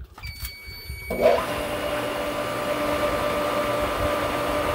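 Sand filter pool pump's control panel beeps as its button is pressed, then about a second in the pump motor starts and runs with a steady hum and rushing water. Air in the lines has the pump cavitating.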